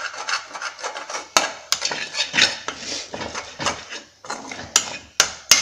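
Spoon scraping and clinking against an aluminium kadai while scrambled egg thoran is stirred, in a quick, irregular series of scrapes and knocks.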